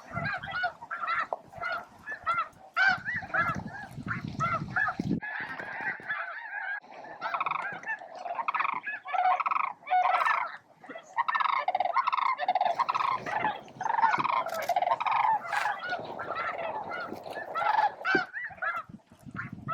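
Large flock of snow geese honking, many short calls overlapping continuously.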